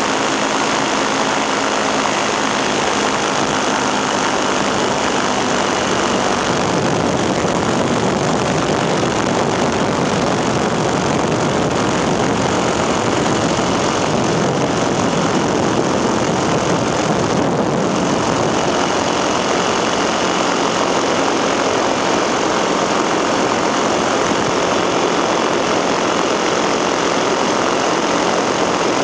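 Engine and propeller of an ultralight aircraft running steadily in flight, heard from on board as a loud, even drone with rushing air. Its low hum fades for a stretch from about six seconds in and returns later.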